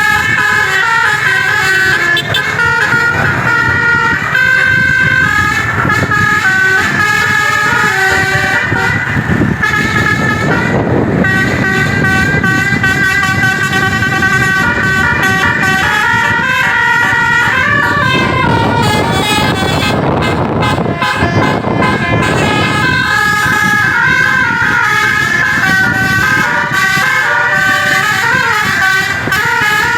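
Basuri telolet multi-tone bus horn playing quick melodic tunes almost without pause, over a steady low rumble. The tune breaks off briefly a little past the middle, leaving mostly the rumble.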